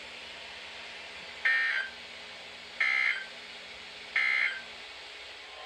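Emergency Alert System end-of-message data signal: three short, identical electronic data tones about a second and a half apart, closing the alert message. A faint low hum lies underneath.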